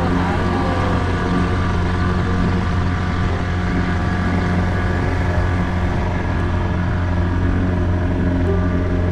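Boat's outboard motor running at a steady speed, a constant drone, with water rushing along the hull as the boat moves.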